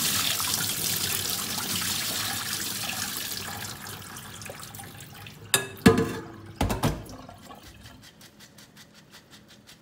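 Water running through a metal mesh strainer of soaked sea moss into a stainless steel sink, fading away after about four seconds. A few sharp knocks follow around six and seven seconds in, then quick, even drips as the strainer drains.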